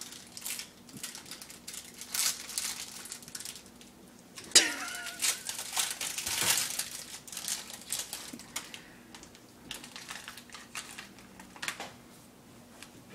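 Plastic snack packaging crinkling and crackling in irregular bursts as it is handled and opened. About four and a half seconds in comes the loudest moment, a sudden sharp crackle with a brief squeak.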